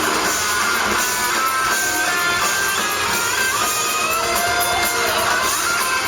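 Live rock band playing loudly, an electric guitar carrying a lead line of bent, gliding notes over the band.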